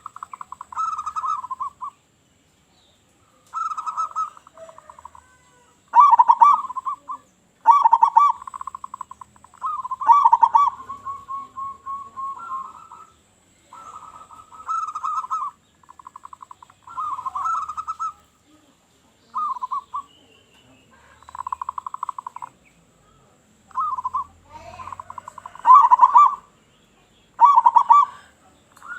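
Zebra doves (perkutut) cooing: repeated rolling coo phrases, each a rapid stuttering trill with a few stronger notes, about one phrase every two seconds.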